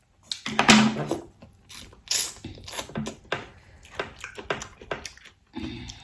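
Close-up eating and food handling at the table: irregular cracks, crunches and clicks, the loudest crackle about a second in.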